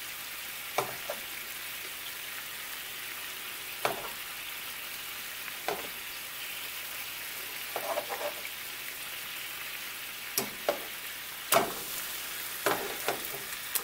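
Salmon pieces sizzling steadily in a red wine and Worcestershire sauce glaze in a nonstick frying pan. Metal tongs click sharply now and then as the pieces are handled, the loudest click near the end.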